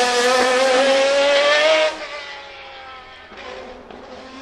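BMW V12 LMR's naturally aspirated V12 racing engine at high revs under acceleration, its pitch climbing slightly. About two seconds in it drops suddenly to a much quieter, lower engine note.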